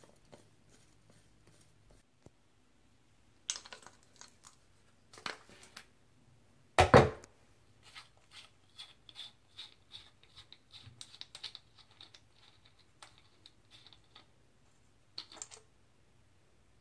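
Small metal clicks and scrapes as a screwdriver and then fingers work the Phillips screw out of a dirt-bike carburetor's float bowl, with one loud knock about seven seconds in. A run of quick light ticks follows as the loosened screw is turned out by hand.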